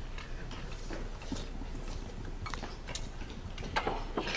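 Faint, scattered clinks and taps of forks on plates against low room tone.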